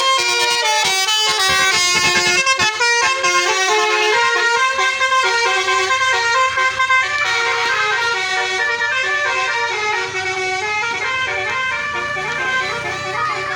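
A bus's 'telolet' musical horn playing a quick tune of stepping notes without pause, several horn tones sounding together; a low hum joins under it about five seconds in.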